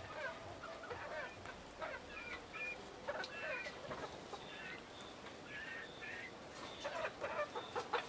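Pearl-grey Italian chickens making short, scattered clucks and chirps as they settle on their roost for the night, with a few wing flaps near the end.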